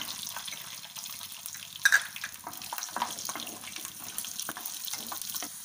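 Garlic cloves and cumin seeds sizzling in hot oil in a nonstick pan as a wooden spatula stirs them. Short crackles are scattered through it, with one louder knock about two seconds in.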